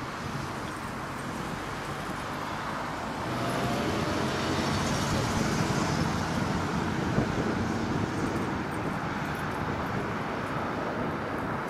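Airbus A330 airliner's jet engines on its landing approach: a steady rumble and hiss that swells for a few seconds, then eases a little.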